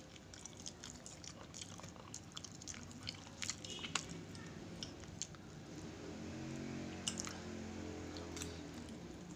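Close-up chewing and eating of soft sticky rice cake, with sharp clicks of a metal fork on a glass plate, the loudest about four seconds in. From about six seconds in, a low steady tone joins in for a few seconds.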